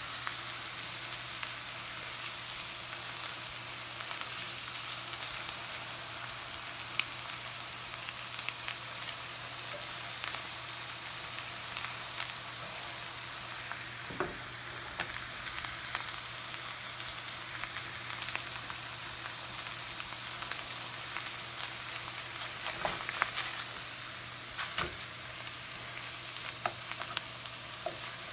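Tilapia fillets frying in butter in a skillet: a steady, high sizzling hiss with scattered small clicks and pops, more of them near the end.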